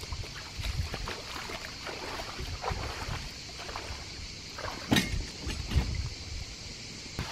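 Shallow lake water splashing and sloshing as a person wades beside an inflatable canoe and handles it, with irregular small splashes and low bumps. One sharp knock comes about five seconds in.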